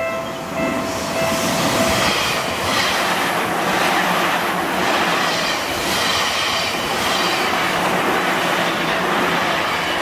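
Electric commuter train passing close by over a level crossing, a steady rumble and clatter of wheels on the rails. The crossing's warning bell rings at the start and is drowned out by the train about a second in.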